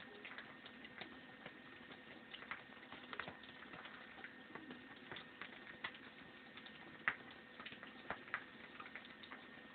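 Faint, irregular small clicks and ticks, one a little louder about seven seconds in, from hands working elastic thread out of hair with a rat-tail comb and scissors, over a faint steady hum.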